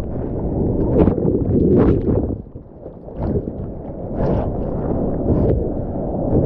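Sea water splashing and surf rushing right at a mouth-mounted GoPro, rising and falling in uneven surges, with a brief lull about two and a half seconds in.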